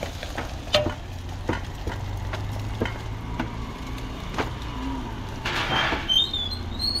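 Sharp metal clinks and taps of a spatula on a flat-top griddle where parathas are cooking, over a steady low hum. A short hiss comes a little before the end.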